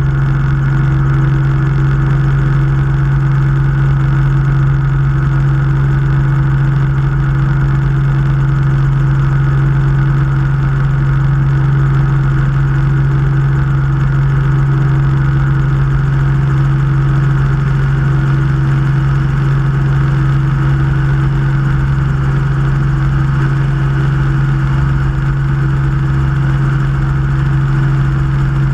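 Helicopter in steady flight: its engine and rotor make a constant loud drone that does not change, heard close up from a camera mounted on the aircraft's fuselage.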